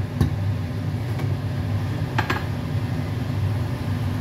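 A steady low hum, with one sharp clack of a wooden spatula against a stainless steel pot about two seconds in.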